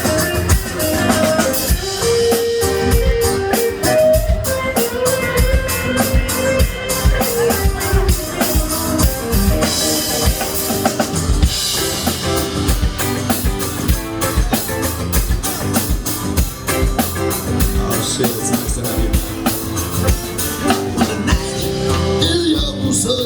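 Live band playing an instrumental passage: a drum kit keeps a steady beat under guitar and bass.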